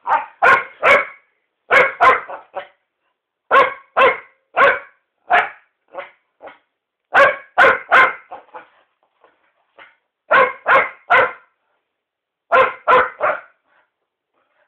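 Jack Russell terrier barking in quick runs of two to four sharp barks, with pauses of a second or two between runs and a few fainter yips in between.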